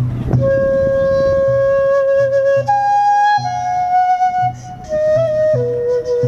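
A flute playing a slow melody of long held notes, stepping up in pitch and then down, over low taiko drum beats.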